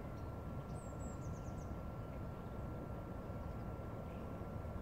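Steady low outdoor rumble, with a brief run of short high chirps about a second in.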